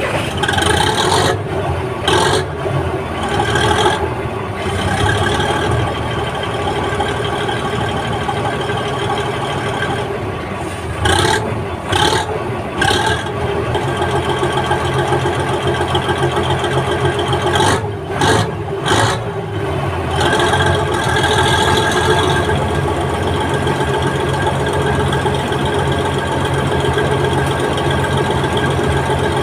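Bizon combine harvester's SW400 six-cylinder diesel engine running. It surges briefly several times in the first twenty seconds, then runs steadily.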